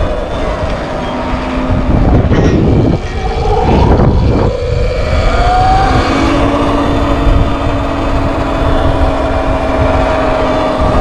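Sur Ron X electric dirt bike under way: the motor and drive whine, rising in pitch about four to six seconds in as it picks up speed and then holding steady, over heavy wind rumble on the microphone.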